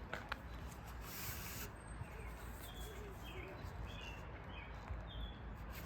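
Faint outdoor background with a series of short, high bird chirps about two to four and a half seconds in, and a couple of small clicks near the start.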